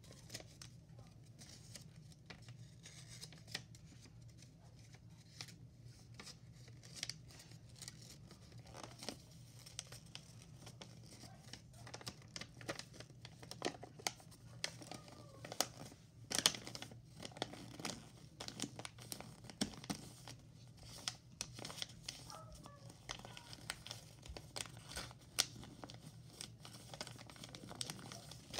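A sheet of white paper being folded and creased by hand: irregular rustling and crinkling with sharp crackles as folds are pressed, loudest about halfway through.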